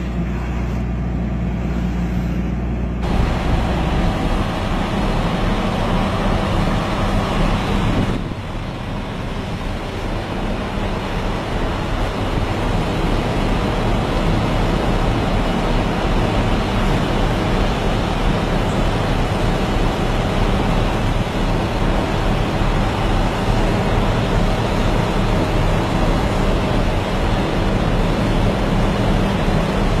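Heavy machine engine running steadily under a loud rushing noise. The sound changes abruptly about 3 seconds in and again about 8 seconds in.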